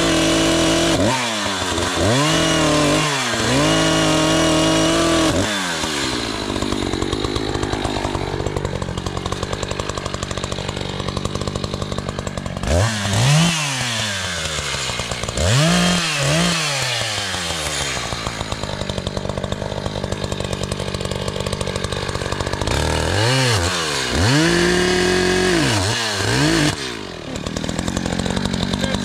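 ECHO CS-590 Timber Wolf two-stroke chainsaw cutting into the trunk of a small standing tree. It runs at steady high throttle through stretches of the cut, and between them the engine is revved down and back up in quick blips several times.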